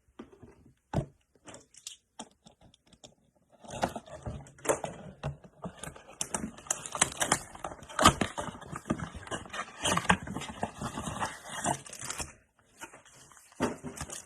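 Trading-card packaging being opened and handled: a few light clicks, then from about four seconds in a long spell of crinkling, tearing and rustling with sharp crackles, pausing briefly near the end.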